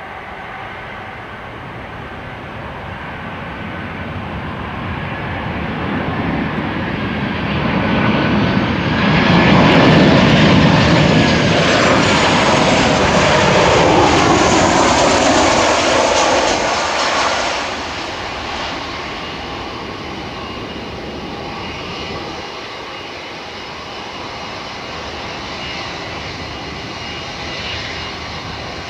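Boeing 737-800's CFM56-7B turbofan engines on landing approach, growing louder as the jet comes in low overhead. It is loudest for several seconds in the middle, with a whine that falls in pitch as it passes, then drops to a steadier, quieter sound as the jet moves away toward the runway.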